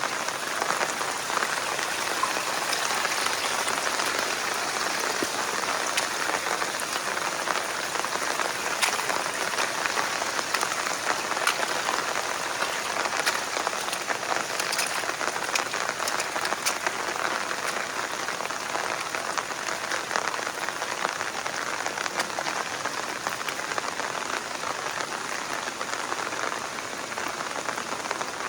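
Heavy rain falling steadily: an even hiss thick with the ticks of individual drops striking surfaces.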